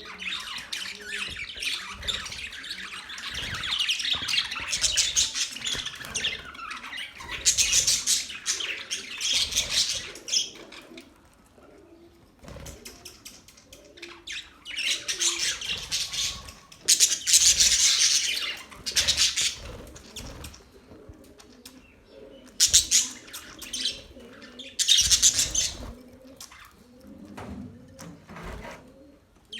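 A group of budgerigars chirping and chattering in fast, high-pitched bursts, with short quieter lulls between.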